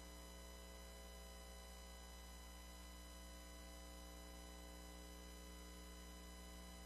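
Near silence: only a steady low electrical hum and hiss of the recording, unchanging throughout.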